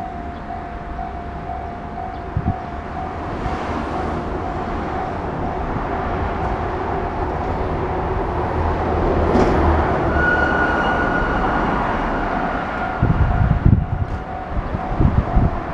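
Japanese level crossing alarm ringing its rapid, repeating electronic bell tone while a Chikuho Electric Railway train passes over the crossing. The train noise swells to a peak about nine seconds in and then fades. Low heavy thumps come near the end.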